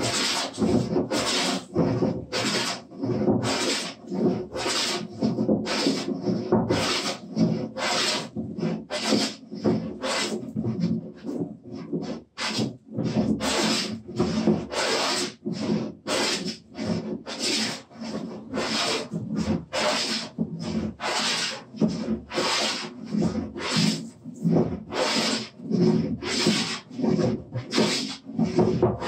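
Wooden jointer plane taking shavings off a wooden workbench top in quick, even back-and-forth strokes, about two a second, each a short hiss of the blade cutting: the bench top being flattened.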